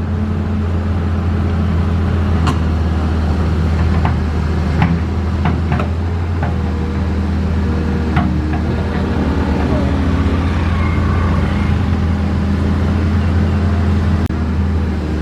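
Cat 320C excavator's diesel engine running steadily, with scattered sharp clicks and knocks over it.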